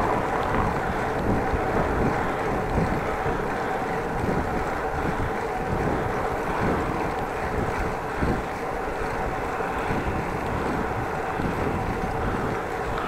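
Wind rushing over the microphone of a camera riding on a moving bicycle, a steady noise with road rolling noise beneath it.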